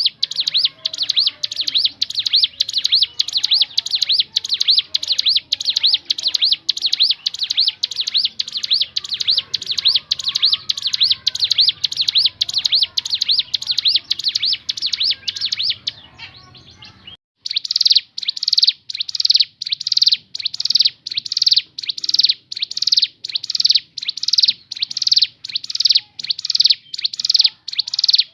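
A ciblek gunung, a mountain prinia, singing a long, fast run of sharp, high chirps at about two to three notes a second. The song breaks off for about a second roughly two-thirds of the way through, then resumes louder.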